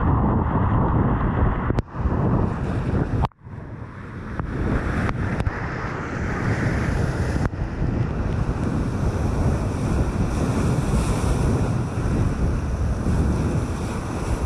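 Whitewater rapids rushing and crashing around a kayak, with wind buffeting the point-of-view camera's microphone. The sound cuts out sharply twice in the first few seconds, then the rush carries on evenly.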